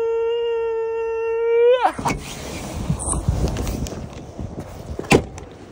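A small electric motor whines at one steady pitch for about two seconds, then drops in pitch and cuts off. A rustling noise follows, with a single sharp click near the end.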